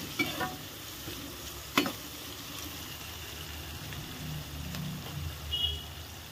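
Chopped onions, green chillies and curry leaves sizzling steadily in hot oil in a kadai. A spatula knocks against the pan once about two seconds in.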